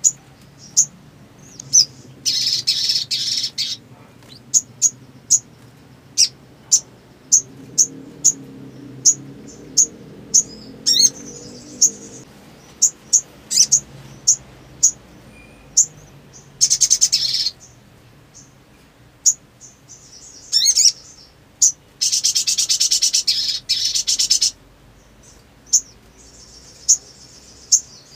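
Sunbird calling: a string of sharp, very high single chirps, broken by a few rapid buzzy trills of one to two seconds.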